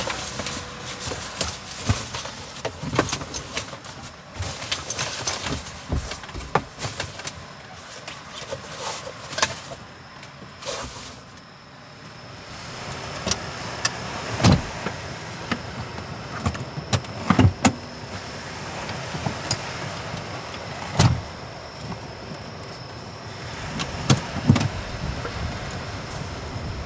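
Rear seats of a car being folded down flat by hand: clicks and handling noises, with several loud thumps as the seat backs go down, over a steady hiss.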